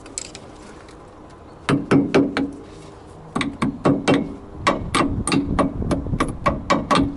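Sharp metallic clicks and taps in three quick bursts, the last and longest near the end, as the retaining locks on a Lada's front brake caliper are snapped shut.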